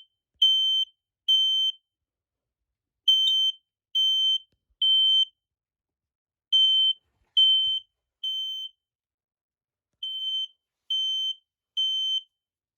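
Firex smoke alarm's piezo horn sounding its alarm: loud, high-pitched beeps of one steady pitch, each about half a second long, in groups of three with a pause of about a second and a half between groups (the temporal-three pattern).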